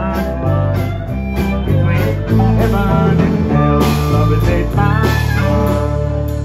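A live country-blues band playing an instrumental passage: strummed acoustic guitar over electric bass and drums, with a harmonica holding long notes on top.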